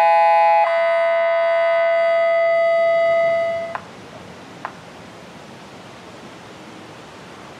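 Homemade mini electronic siren, a SiraTone-driven amplifier and horn speaker, sounding a steady electronic tone rich in overtones. The tone steps down in pitch just under a second in, holds, and then cuts off suddenly. A single click and a steady outdoor hiss follow.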